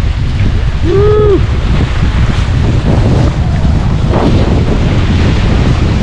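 Wind buffeting the microphone over the rush and splash of water along the hulls of a Hobie Getaway catamaran under sail. About a second in, a short pitched sound rises and falls once, like a brief voice.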